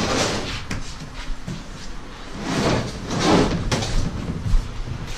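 Large molded-plastic boat panel being shifted and turned by hand: two swells of rubbing and scraping, with a few sharp knocks and clicks between them.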